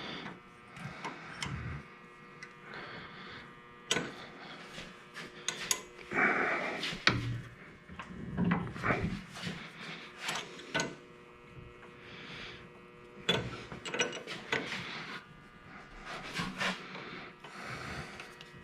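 Metal hand tools clinking and scraping as a wrench is worked onto a rounded brake-line fitting, with a few sharp knocks scattered through.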